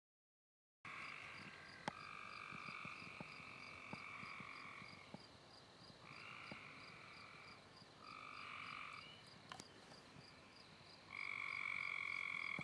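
A faint frog chorus: several long trills of one to three seconds each, some overlapping, over a steady series of faint high peeps.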